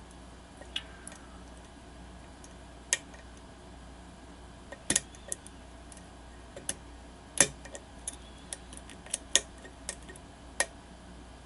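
Lock pick working the pins of a pin-tumbler challenge lock under tension: scattered sharp clicks and ticks at irregular intervals, the loudest about seven and a half seconds in. The lock is sitting in a false set.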